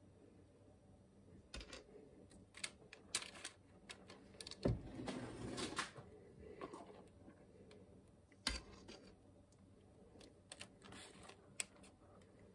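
Metal measuring cup scraping and knocking against a stainless steel mixing bowl as bread batter is scooped out and poured into a loaf pan: faint, scattered taps and scrapes, with the loudest knock a little under five seconds in.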